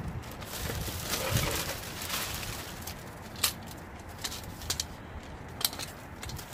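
Items being handled and unpacked from bags: rustling for a second or two, then a few sharp clicks and knocks.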